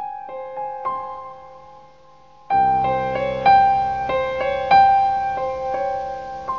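Solo piano playing a slow, gentle melody of single ringing notes; about two and a half seconds in, fuller chords with low bass notes come in and it gets louder.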